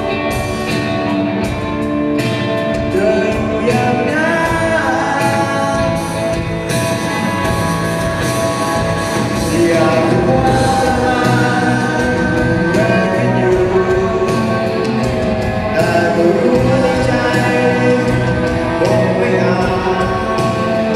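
A live band playing a song with a singer, drums keeping a steady beat under the vocals.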